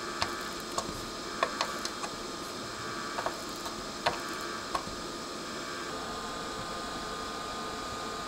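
Soldering iron reflowing dry solder joints on an amplifier circuit board: small, irregular ticks and crackles as the solder melts, about eight of them, stopping about five seconds in, over a steady background hiss.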